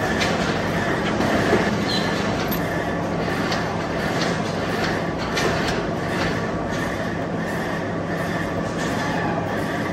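Old W&B vertical turret lathe running and cutting: a steady machine hum and grinding cutting noise, with irregular light clicks and scrapes about once a second as the tool works the solid block into a large pulley.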